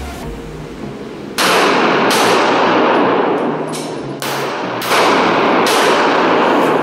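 Handgun shots fired in an indoor shooting range: a string of several sharp shots starting about a second in, spaced roughly a second apart, each with a long echoing tail.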